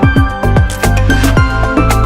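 Background music with a steady beat and electronic bass hits.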